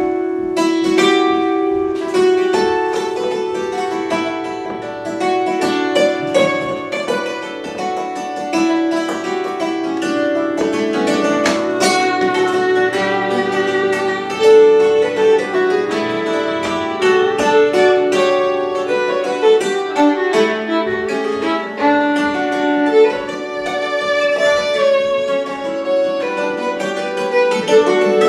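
Hammered dulcimer and fiddle playing a tune together: the dulcimer's hammers strike a steady stream of ringing notes under the fiddle's bowed melody.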